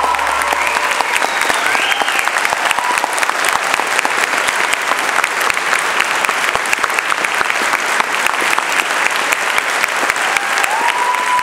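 Audience applauding steadily in dense clapping, while the last low note of the music dies away in the first second.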